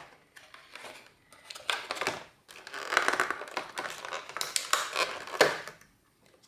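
Plastic packaging crinkling and rustling in irregular bursts as the contents of a trading card collection box are unpacked by hand.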